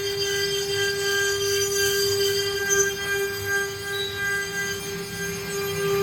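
CNC router spindle whining at a steady high pitch while it cuts serish wood, with a rough cutting noise underneath.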